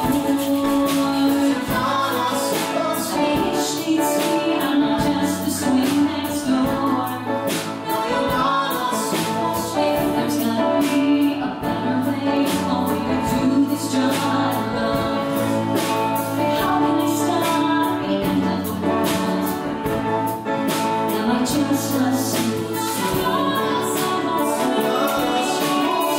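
A woman singing a Broadway-style show tune live, backed by a small band of piano, electric guitar and drums.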